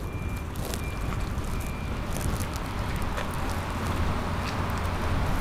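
Steady outdoor background noise: a low rumble under a broad hiss, swelling slightly midway, with a few faint clicks.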